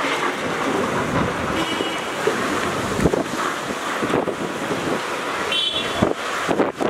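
Storm wind gusting across the phone's microphone, a steady rushing roar broken by a few low buffeting thumps.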